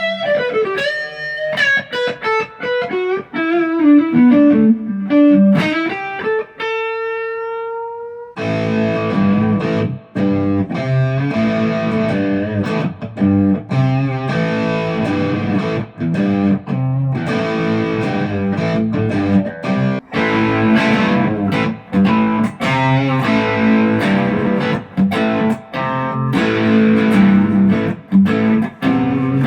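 ESP LTD EC-256 electric guitar playing a lead line of single notes with bends and a falling run, ending on a long held note. About eight seconds in it switches abruptly to dense distorted rhythm playing.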